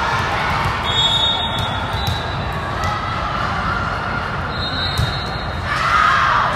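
Volleyball gym ambience: ball hits and thuds echoing in a large hall over steady spectator chatter, with a few short high squeaks and a swell of crowd noise near the end.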